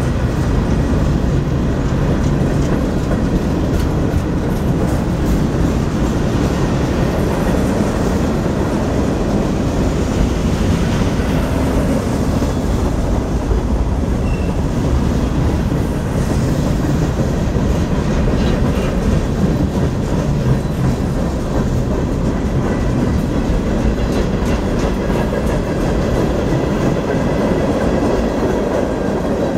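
Freight cars of a CSX manifest train rolling past close by at speed: a steady rumble of steel wheels on rail with a running clickety-clack over the rail joints.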